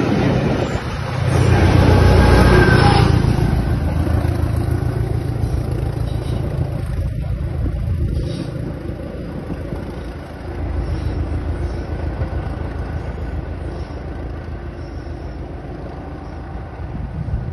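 A train passing with a heavy rumble that is loudest about two seconds in, then slowly fades as it runs on.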